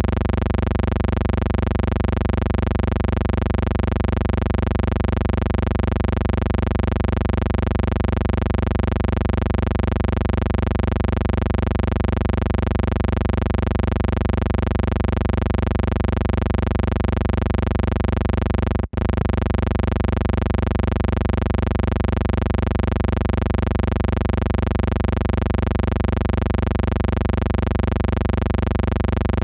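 Steady electrical hum with a stack of even overtones, unchanging in pitch and level, cut off for an instant about nineteen seconds in before it resumes. It belongs to the audio track of a silent film transfer, not to anything in the picture.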